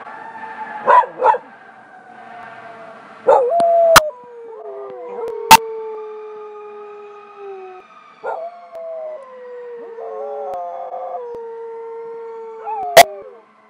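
Dogs howling, a golden retriever–Nova Scotia duck tolling retriever mix and a Buhund mix, in long howls that slide down in pitch, sometimes overlapping, with short yips between them. Three sharp loud clicks cut in, about four seconds in, a second and a half later, and near the end.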